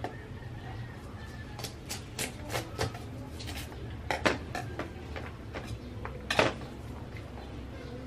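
A kitchen knife clicking and tapping against a cutting board while garlic cloves are cut off a bulb: a string of irregular sharp clicks, the loudest about four and six and a half seconds in, over a steady low hum.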